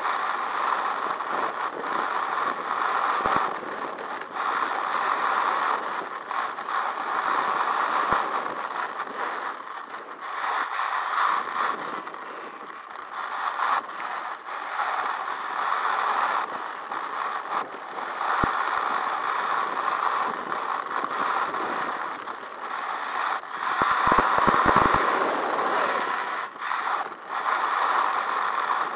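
HPI WR8 Flux electric RC rally car driving fast on gravel, heard from a camera on its roof: tyres crunching and scrabbling over the loose surface with drivetrain noise, swelling and dropping every few seconds with throttle. A quick run of sharp clicks comes about 24 seconds in.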